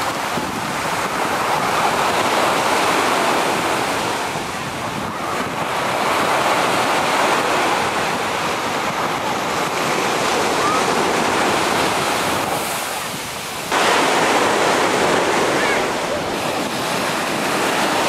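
Sea surf breaking and washing up a sandy beach in slow, rising and falling surges, with wind on the microphone. It gets suddenly louder about fourteen seconds in.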